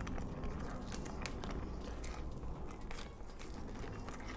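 Close-up eating: biting into and chewing a breaded fried chicken wing, with scattered short crunchy clicks.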